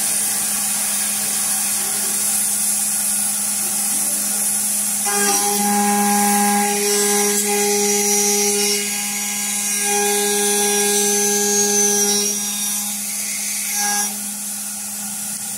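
Spindle of a CNC aluminium-profile milling and drilling machine running, its cutter working into an aluminium window profile between two drilled holes, over a steady hum and hiss. From about five seconds in until about fourteen seconds in, a higher whine joins as the cutter bites into the metal.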